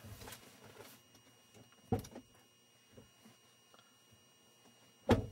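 Two sharp thumps, one about two seconds in and a louder one just before the end, over faint outdoor rustling on the microphone.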